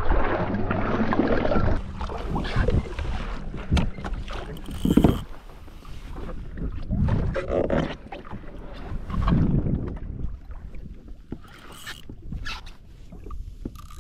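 Water sloshing and splashing against a kayak's hull in uneven surges, with some wind on the microphone.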